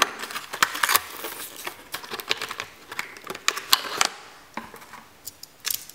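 Cardboard blister-pack backing being torn open and the clear plastic bubble handled by hand: an irregular run of sharp clicks, crackles and tearing.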